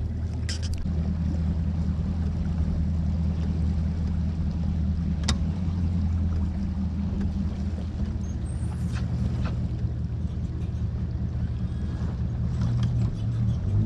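Boat's outboard motor running steadily at low speed, a constant low hum, with a few sharp clicks along the way.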